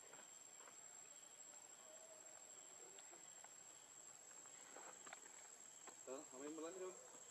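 Near silence filled by a faint, steady, high-pitched insect trill, with a few faint clicks. About six seconds in comes a short, wavering, voice-like call.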